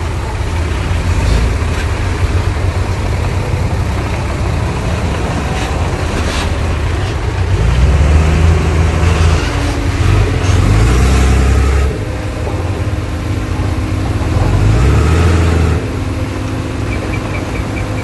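Diesel engine of heavy earthmoving machinery working under changing load, its note rising and falling several times, with a few metallic clanks along the way.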